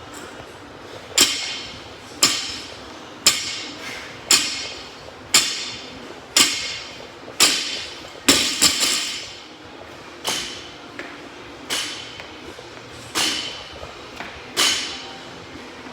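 A loaded barbell's plates striking the floor again and again, one deadlift rep at a time. The impacts start about a second apart and spread to about a second and a half apart later on.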